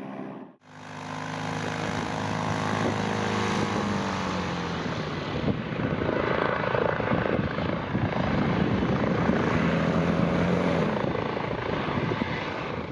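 Electric contra-rotating propulsion system, two propellers on a roof-mounted rig atop a test car, running at full power (about 140 kW, 2100 rpm): a loud propeller drone with a stack of blade tones. The sound cuts out briefly about half a second in, then the tones fall in pitch over the next few seconds and sweep up and down again later.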